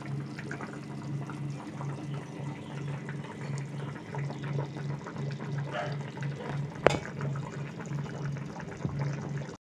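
Thin fish curry bubbling at a rolling boil in a pan: a steady busy crackle of small bursting bubbles over a low pulsing hum, with one sharper click about seven seconds in. The sound cuts off suddenly just before the end.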